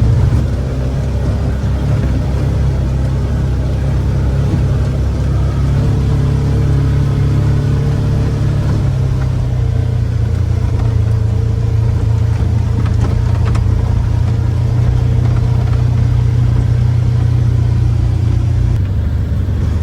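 Vehicle driving at steady speed: a constant engine hum and road rumble.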